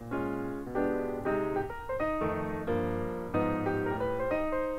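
Background piano music: a light tune of chords and single notes, with no other sound standing out.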